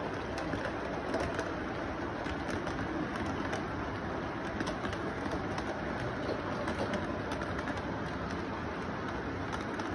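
Electric model train rolling along its track: a steady rumble from the motor and wheels, with light ticks of the wheels over the rail joints.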